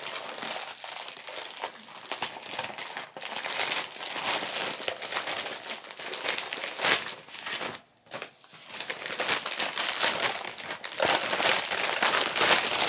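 Plastic poly mailer bag crinkling and rustling as it is handled and opened, in uneven surges, with a short lull about eight seconds in.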